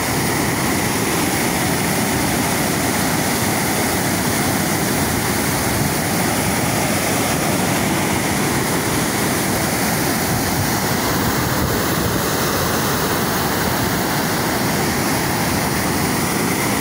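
Water released at high pressure rushing and churning into white water below a concrete bridge; a loud, steady rush with no let-up.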